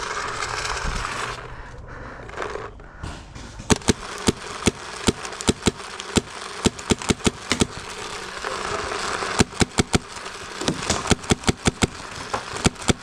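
Paintball marker gunfire at close range: a string of sharp pops, several a second, in two runs with a short pause between them, the second run faster.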